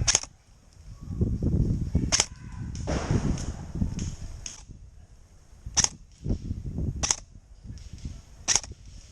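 An airsoft gun firing single shots, five sharp cracks spaced one to three and a half seconds apart.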